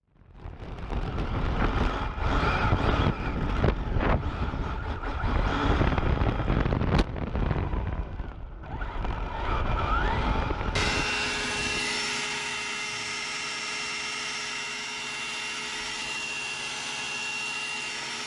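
Custom electric RC rally car driven fast on asphalt, heard through its onboard camera: rough wind and road rumble with the motor's whine rising and falling, and a sharp click about seven seconds in. About eleven seconds in the sound switches abruptly to a steady, even whine and hiss that holds to the end.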